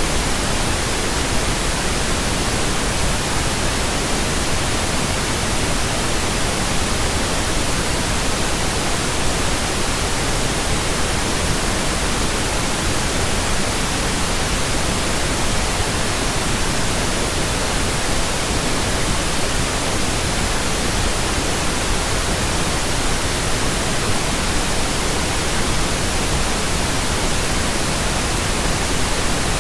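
Steady synthetic pink noise: an even, unchanging hiss across all pitches, with no tones or breaks.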